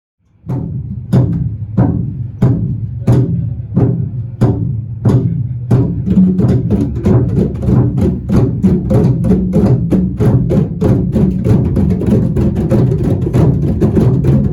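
Percussion-led music starts about half a second in: a steady drum beat of about one and a half strikes a second over a low sustained bass, turning into a busier, denser percussion rhythm about six seconds in.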